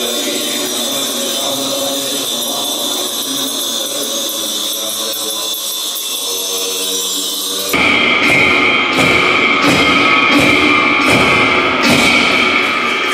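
Music. A steady passage gives way suddenly, about eight seconds in, to a louder section with regular drumbeats a little more than half a second apart under a sustained high tone.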